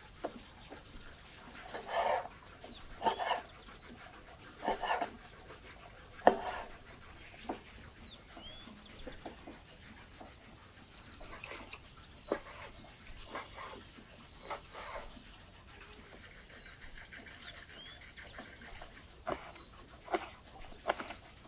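Knife cutting raw meat on a wooden cutting board: irregular sharp knocks and soft slicing swishes, the loudest knock about six seconds in. Small birds chirp now and then in the background.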